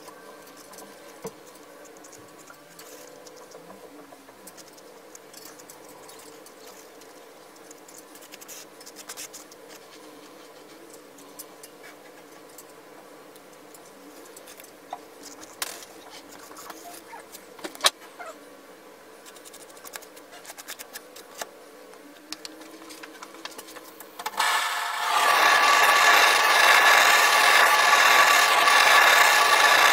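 A flat spreader scraping and smoothing wet epoxy over a wooden sign, a faint scrape with scattered light clicks. About 24 seconds in, a gas torch starts with a loud steady hiss and is passed over the fresh epoxy to pop air bubbles.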